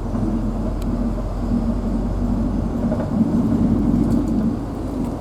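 Engine and road noise of a moving vehicle heard from inside the cab: a steady low drone that grows a little louder about three to four seconds in.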